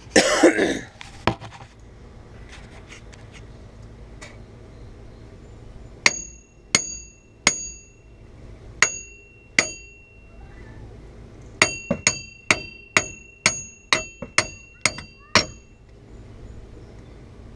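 Hammer blows on the steel front wheel bearing hub assembly of a Camaro Z28, each strike ringing out, to drive the hub out of the steering knuckle as it starts to come free. A loud clatter at the start, then a set of five spaced blows and a quicker run of about ten.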